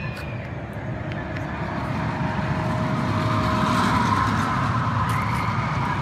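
An engine running with a low rumble and a faint steady whine, swelling to its loudest about four seconds in and then easing off.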